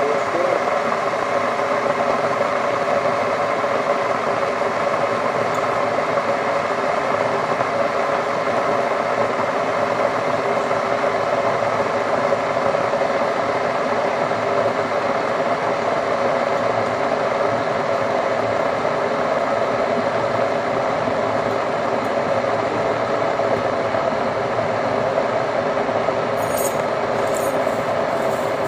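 A steady mechanical whir and rumble that does not change, with a few faint clicks near the end.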